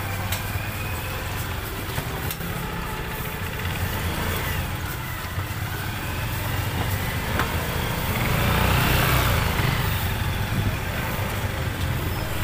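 Small motorcycle and scooter engines running in a busy street, with a steady low hum. One engine swells as it passes close about two-thirds of the way through, the loudest moment.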